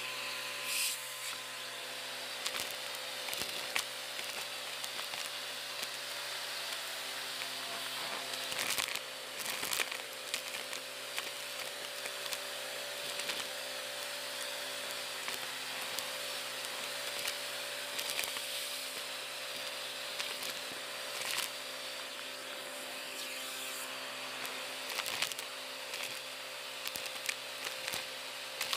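Vacuum cleaner running steadily as its crevice tool sucks up a pile of dust, twigs and small plastic bits from a rug, with frequent sharp crackles and clicks as the debris is pulled in.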